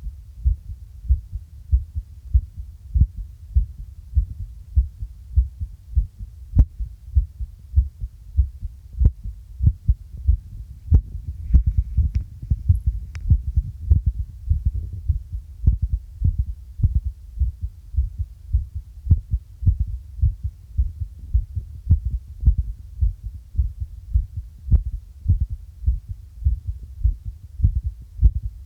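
A human heartbeat picked up through a makeshift microphone pressed over the apex of the heart: steady, regular low thuds. A few sharper clicks come through around the middle.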